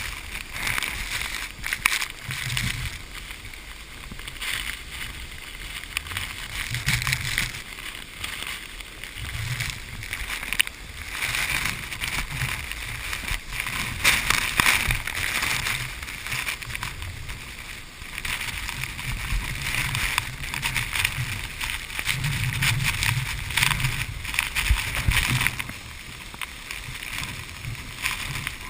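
Continuous rushing noise of the 120 m Sipiso-piso waterfall, rising and falling in level every few seconds.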